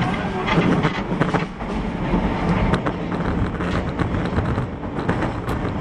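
Osaka Metro 31 series subway car (set 31621F) running on the Midosuji Line, heard from inside the car: a steady rumble of wheels and running gear with irregular sharp clicks from the wheels on the track.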